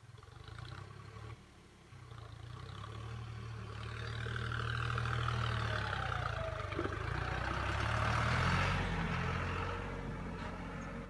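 Deutz Fahr Agromaxx 4050E tractor's three-cylinder diesel engine running as the tractor with its mounted cultivator drives close past, growing louder to a peak about halfway through and fading near the end, with a higher clattering rattle as it passes.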